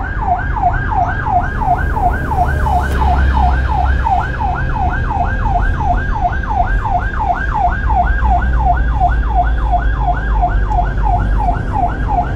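Electronic emergency-vehicle siren in fast yelp mode, a rising wail repeating about three and a half times a second, over the low rumble of a vehicle's engine and road noise.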